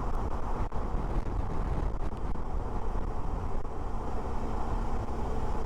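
Suzuki V-Strom 650 motorcycle riding at a steady pace, heard from the helmet: a steady rush of wind and road noise with the V-twin engine running underneath.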